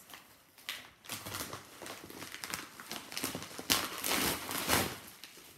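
A yellow paper mailer envelope being torn open and crinkled by hand: a run of crackling paper rustles, loudest about four seconds in.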